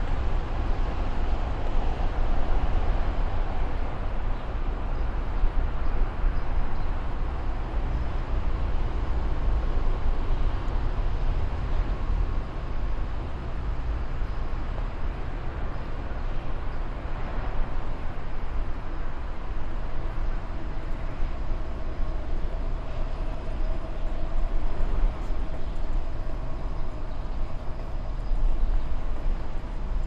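Steady low rumble under a continuous wash of background noise, with a faint hum running through it.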